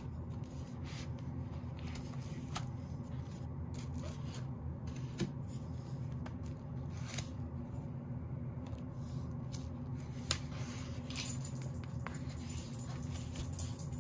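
Hands handling a paperback photobook and lyric book on a bubble-wrap sheet: the books are set down, covers slide and paper pages rustle, with a few sharper taps about 5 and 10 seconds in. A steady low hum runs underneath.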